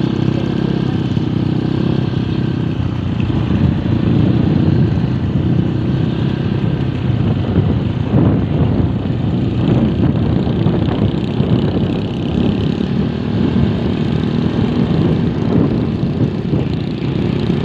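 A moving vehicle's engine running steadily at road speed, mixed with wind and road noise.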